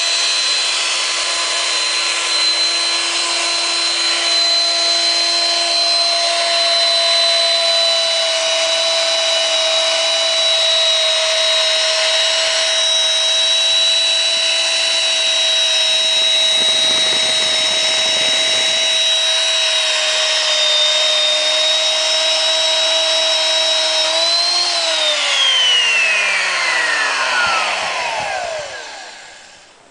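RIDGID HC-450 hole-cutting machine's electric motor running steadily with a whine while its hole saw cuts a branch hole through a metal pipe, with a short low rumble about 17 seconds in. About 24 seconds in the pitch rises slightly, then the motor is switched off and winds down with a falling whine to a stop.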